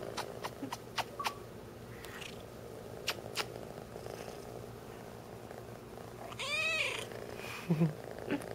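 Three-month-old orange tabby kitten purring steadily. About two-thirds of the way through it gives one loud meow that rises and falls in pitch, followed by two brief low sounds. A few light clicks come in the first half.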